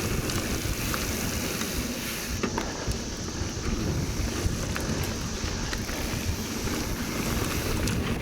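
Wind buffeting the microphone as a mountain bike rides a trail, with small clicks and rattles from the bike and tyres. Behind it runs a steady high hiss that fits the chorus of 17-year cicadas.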